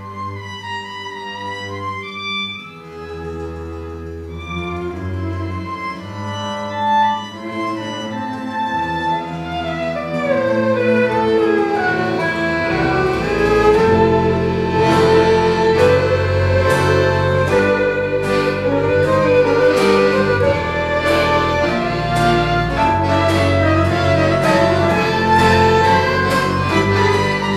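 Live Gypsy-style acoustic band: violins over plucked double bass and acoustic guitar, with accordion. The playing is softer at first, then swells about ten seconds in to a louder, driving passage with sharp rhythmic accents.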